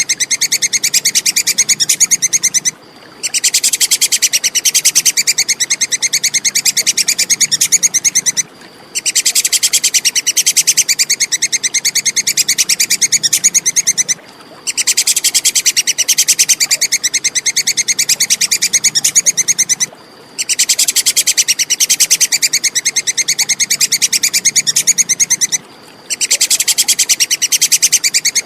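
Tupai kekes squirrel giving a rapid, high-pitched chattering call. It runs in bouts of about five and a half seconds, each broken off by a brief pause, repeating at even intervals.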